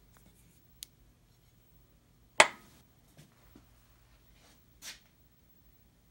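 A single sharp knock about two and a half seconds in, with a few lighter clicks and a soft brushing sound around it, over a faint steady low hum.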